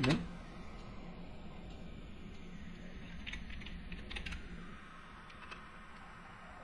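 Typing on a computer keyboard: a few quick runs of keystrokes about three and four seconds in, and a single keystroke a little later.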